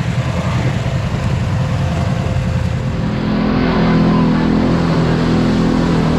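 Kawasaki KRX4 1000 side-by-side's parallel-twin engine running while driving along a trail, with tyre and trail noise; about three seconds in the engine note grows louder and steadier.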